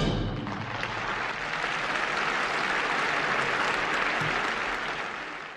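Theatre audience applauding in a steady, dense ovation that fades out near the end.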